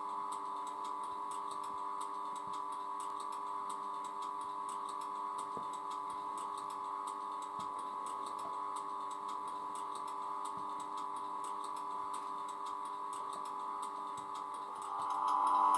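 Class 91 electric locomotive standing and humming, as played by a model's DCC sound decoder through its small speaker: a steady drone of several fixed tones with faint light ticking. The hum swells near the end.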